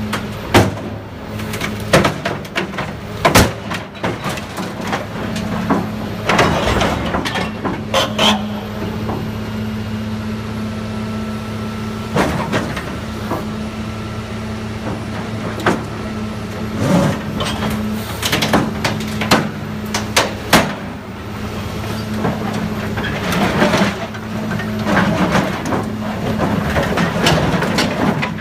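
Heavy machinery's diesel engine running steadily under many sharp metal clanks and bangs, with stretches of grinding and scraping as a bulldozer is torn apart for scrap.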